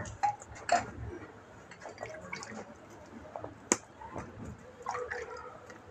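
Milk squirting by hand from a water buffalo's teats into a metal tumbler: short, irregular spurts, one sharper than the rest about two-thirds of the way through.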